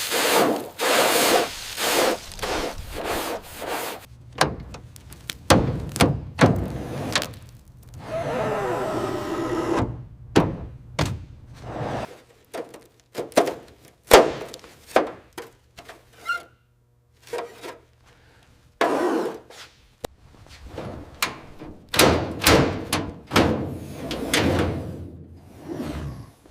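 A busy run of workshop work sounds: sharp knocks and thuds in quick succession mixed with rubbing and scraping. About eight seconds in there is a two-second stretch of steadier, wavering noise, and a short quiet pause comes a little past the middle.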